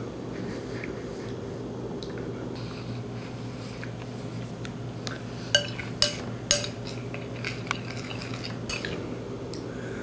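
Metal spoon clinking against a china bowl while eating: light taps scattered through, and three sharp clinks about half a second apart in the middle, over a steady low room hum.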